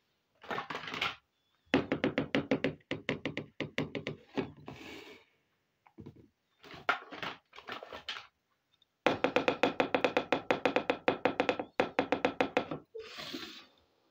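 Small plastic toy kitchen pieces being handled: several runs of rapid clicking, about nine clicks a second with a pitched ring, the longest lasting nearly three seconds. Brief rustles come near the start, about five seconds in and near the end.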